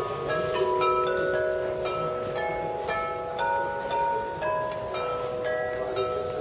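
Glockenspiel of Meissen porcelain bells playing a melody, single struck notes ringing on and overlapping one another.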